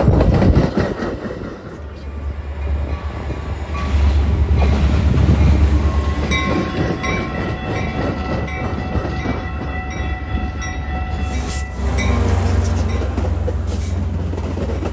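Metra double-deck commuter train rolling past as it pulls into the station, the cars' wheels rumbling over the rails. Near the end, the pushing diesel locomotive comes alongside and its engine hum grows louder.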